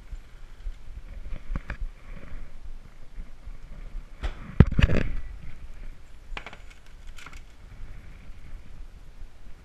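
Kitchen handling sounds: a metal sheet pan clattering lightly as it is lifted off the oven rack and set down, with a louder thump about halfway through as the oven door is shut.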